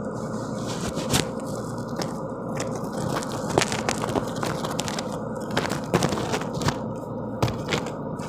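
SANY 210 excavator working rock: the engine runs steadily under irregular sharp cracks and crunches of rock.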